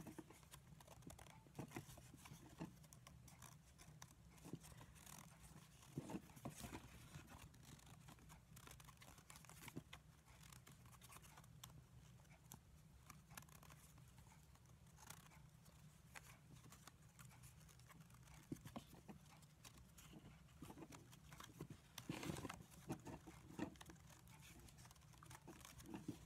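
Faint rustling and clicking of flat basket reeds as the woven rows are pushed down tight around the basket, over a low steady hum.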